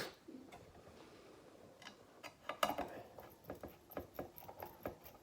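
Small hard parts and a tool being handled during RC kit assembly: a sharp click at the start, then irregular small clicks and taps, busier from about two seconds in.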